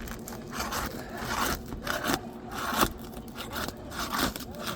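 Steel flat bar scraping and prying under brittle, granule-worn asphalt shingles to work a broken shingle loose, with several sharp snaps among the scraping.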